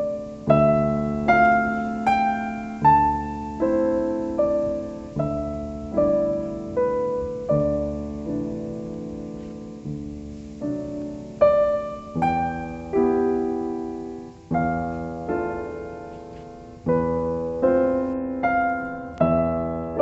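Background piano music: a slow melody of single struck notes, each fading away, over low accompanying notes.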